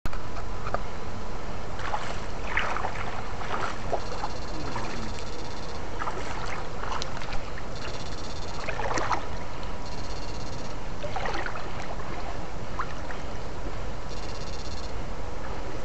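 Water sloshing and splashing in a shallow rocky stream as someone wades through it with fishing poles in the water. Five short high-pitched buzzes of under a second each come at irregular intervals.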